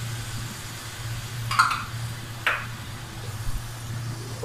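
Tomato paste sizzling softly in hot oil as a wooden spoon stirs it in an aluminium pot, with two sharp knocks of the spoon against the pot, about a second and a half and two and a half seconds in.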